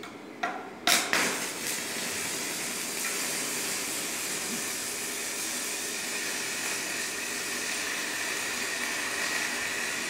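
Stick-welding (MMA) arc: a few sharp crackles as the electrode strikes within the first second, then a steady sizzling hiss as the arc burns on the steel plate.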